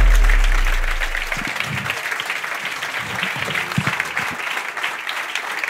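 Audience applauding in a large hall, as the deep bass of the stage music fades out about a second and a half in.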